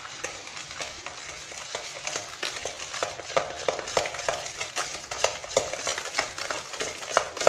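A fork beating eggs, soft margarine and flan powder together by hand in a plastic bowl: quick, irregular clicks of the fork against the bowl, busier after the first couple of seconds.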